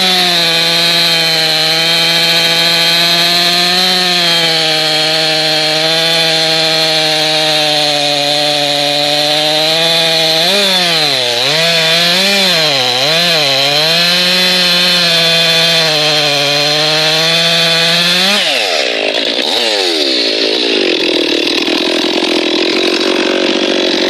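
Mastermind-ported Stihl MS441 C-M two-stroke chainsaw with a square-ground chain, held at high revs while cutting through a thick log. About halfway through, the engine pitch dips and recovers several times as the grabby chain bites into the wood. Near the end the revs climb sharply as the bar clears the cut and the saw runs unloaded.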